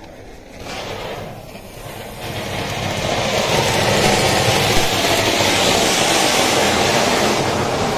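Diwali anaar (flower-pot fountain firework) hissing as it burns and drives a toy train along its track. The hiss starts faint about half a second in, swells after two seconds and settles into a loud, steady rush.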